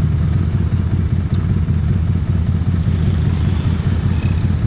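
Harley-Davidson Street 500's 500 cc V-twin idling steadily through an aftermarket exhaust.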